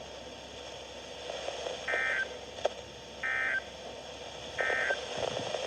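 Emergency Alert System end-of-message signal: three short bursts of warbling SAME data tones, evenly spaced about a second apart, over steady radio hiss, marking the end of the warning broadcast.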